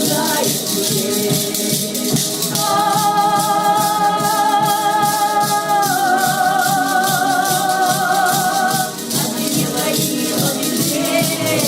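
Music with a steady shaker rhythm. About two and a half seconds in, a long held note begins; it takes on a vibrato around the middle and stops near the end.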